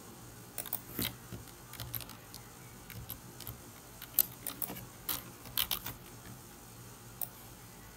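Irregular clicks of a computer mouse and keyboard keys being typed. They come in a short cluster about a second in and a denser run between four and six seconds in.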